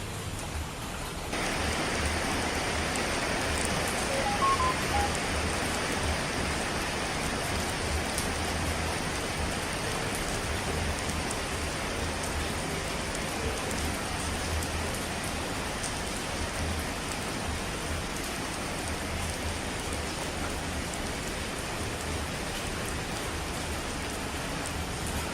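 Steady heavy rain, a dense even hiss that steps up in loudness about a second in.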